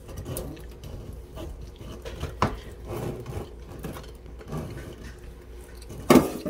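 Old kitchen faucet being pulled up out of its mounting hole: scattered light knocks and scrapes of the faucet body and supply hoses against the sink deck, with a sharp knock about two and a half seconds in and a louder knock near the end.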